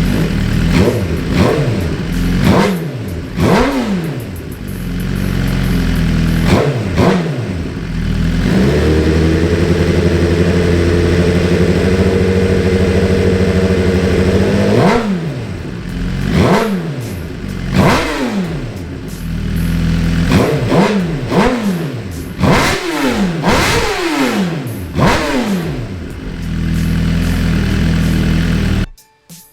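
2018 Suzuki GSX-R1000R inline-four engine running on its first start-up after modification, revved in repeated quick blips, held at a steady higher rpm for several seconds midway, then blipped again before stopping abruptly near the end. The run is to circulate coolant and purge air from the newly fitted radiator.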